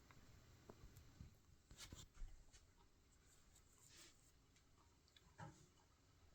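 Near silence with faint, scattered clicks from the movement of a radio-controlled atomic wall clock as its hands run fast on their own to reset for the daylight saving time change.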